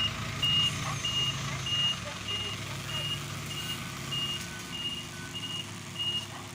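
A heavy machine's backup alarm beeping steadily, a little under two beeps a second, over the low hum of a diesel engine running.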